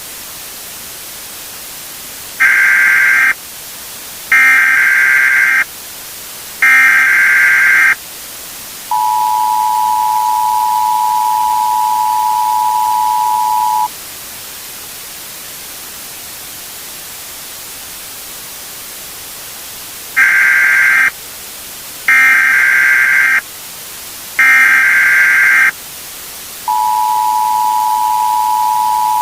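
Emergency Alert System signal over a steady static hiss: three short screeching bursts of SAME header data, then the steady two-tone attention signal for about five seconds. After a stretch of hiss alone, three more data bursts sound, and the attention signal starts again near the end.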